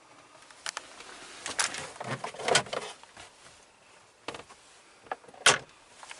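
A string of clicks and clunks from a car's doors and latches being handled: a few separate knocks, a busy clatter around the middle, and a sharp clunk near the end.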